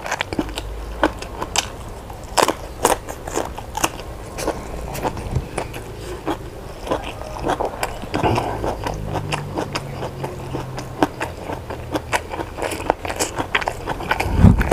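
A person eating close to the microphone: chewing with many sharp, irregular crunchy bites. A few heavier low thumps come near the end.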